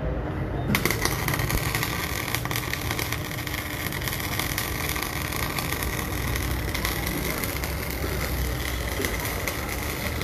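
MIG welding arc striking about a second in, then crackling and sizzling steadily as weld metal is built up on a shaft, with a steady hum underneath.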